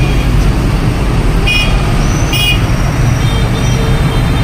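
Fire-service vehicles running, a steady low engine and road rumble, with two short high beeps about a second and a half in, just under a second apart.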